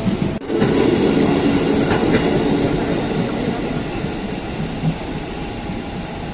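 KRL Commuterline electric commuter train running along a station platform, its wheels clattering over the rails. The sound breaks off sharply about half a second in, then comes back loudest and slowly eases away.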